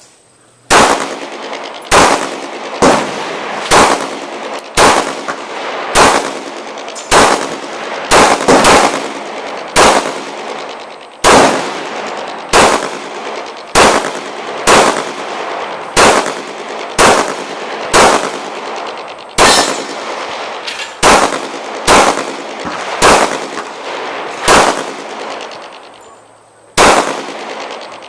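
A Glock 21 .45 ACP pistol firing a USPSA stage: about two dozen shots at an uneven pace of roughly one a second, with a few longer gaps, each shot followed by a short echo.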